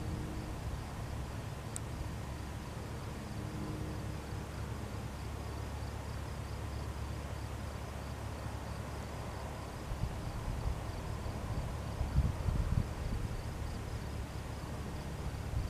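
A distant Cessna 172N's engine drones low and steady on approach, under insects chirping in a rapid, even pulse. Wind buffets the microphone briefly past the middle.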